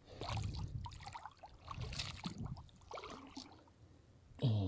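Shallow seawater splashing, trickling and dripping as a hand works in it and lifts a catch out, in a few irregular splashes, the strongest about two seconds in.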